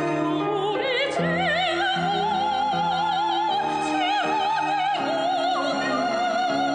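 Music: a high melody with wide, wavering vibrato over sustained accompaniment chords.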